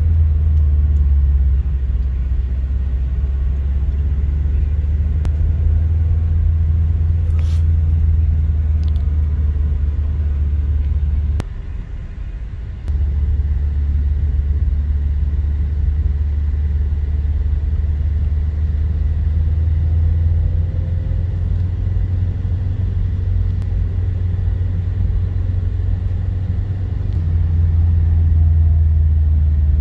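Steady low vehicle rumble heard from inside a car's cabin in slow highway traffic. It dips for about a second and a half around eleven seconds in and swells a little near the end.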